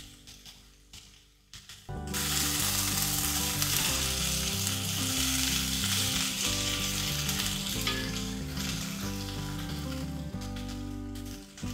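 Diced vegetables (carrot, celery, potato and leek) sizzling as they sauté in hot fat in a pot, stirred with a spatula. The sizzling starts suddenly about two seconds in and stays steady.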